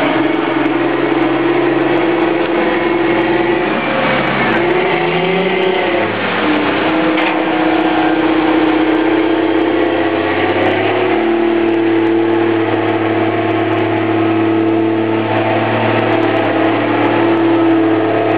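Challenger MT765C rubber-tracked tractor's diesel engine running steadily under load with a steady whine, pushing grass silage with its front blade; about four to six seconds in the engine note dips and rises, then settles at a new steady pitch.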